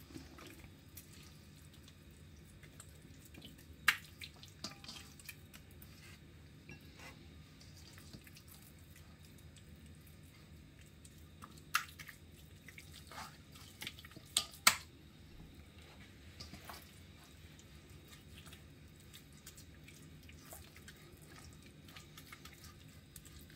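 Hands kneading and squeezing seasoned raw pork in a stainless steel bowl: soft wet squelching with a few sharp clicks or slaps, the loudest about 4 seconds in and twice just before 15 seconds, over a low steady hum.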